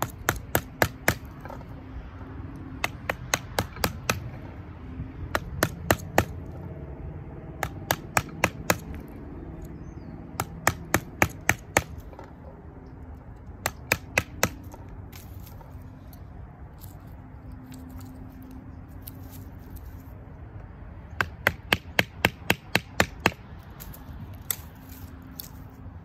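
A wooden baton striking the spine of a knife, driving the blade through a branch laid on a log. Sharp wooden knocks come in runs of four to six at about four a second, with pauses between runs and a longer pause in the middle.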